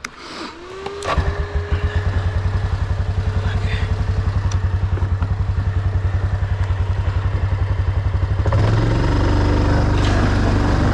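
ATV engine cranked on its electric starter, catching after about a second and idling with an even, fast chug. Near the end it speeds up to a louder, smoother run.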